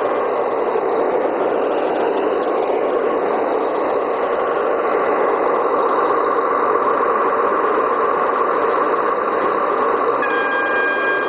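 A 1:32 Gauge 1 model ore train, double-headed by two BR 211 diesel locomotive models, running along the track: a steady rolling rumble of the train. About ten seconds in, a steady high tone joins it.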